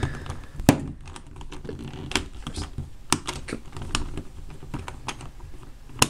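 Knife blade prying at the plastic pieces of a Rubik's Cube, giving irregular sharp clicks and taps of metal on plastic, the loudest a little under a second in. The cube is being forced to pop a piece out for disassembly, and the piece holds.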